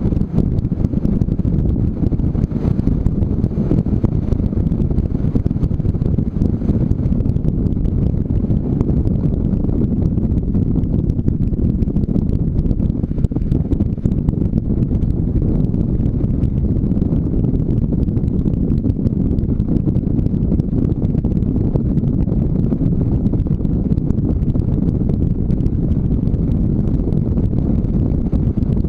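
Motorcycle riding steadily along a gravel road: a continuous low rumble of wind buffeting the microphone mixed with engine and tyre noise, with no change in pace.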